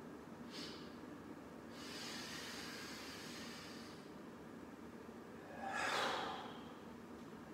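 A man breathing deeply: a long drawn-in breath from about two seconds in, then a loud, forceful exhale about six seconds in.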